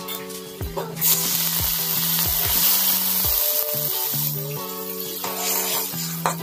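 Water poured into hot oil and chopped garlic in a metal wok. A sudden loud hiss starts about a second in, lasts about three seconds, then dies down to a lighter sizzle as a metal spatula stirs.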